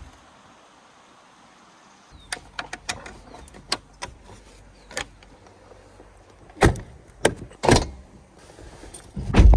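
Latches clicking and knocking as the pop-top roof of an aluminium pickup camper canopy is secured, then several heavy thumps and a loud bang near the end as the rear canopy door and swing-out spare-wheel carrier are shut.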